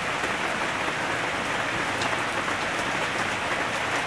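Heavy summer rain pouring down steadily: an even hiss of falling rain with the odd sharper drop.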